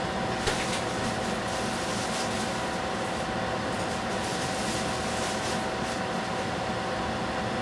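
Steady hiss from a lidded stainless frying pan cooking over a gas burner, with a faint constant hum and a few faint crackles from the pan.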